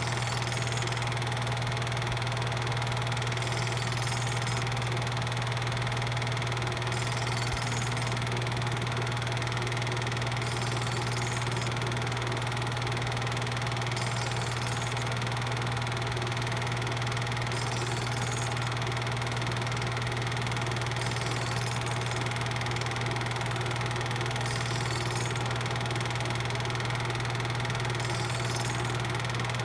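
A steady low hum under an even hiss, unchanging, with no speech or music.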